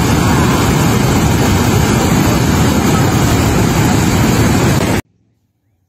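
Floodwater rushing over a dam spillway, a loud steady rush from a full reservoir spilling over; it cuts off abruptly about five seconds in.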